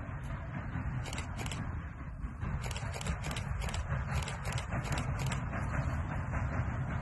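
Chesapeake and Ohio No. 1309, a 2-6-6-2 compound Mallet steam locomotive, working hard in the distance: a steady low rumble with exhaust chuffs at about three to four a second, which come through more clearly from about two and a half seconds in.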